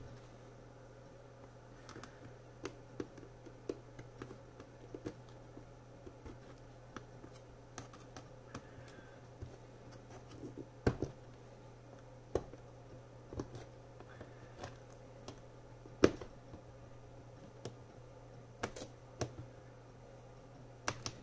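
Small hand cutters snipping the round plastic rivet heads that hold the keyboard into an HP Envy x360 15m palm rest, cutting them off so the keyboard can come out. Irregular sharp clicks and snips, a few of them much louder, over a steady low hum.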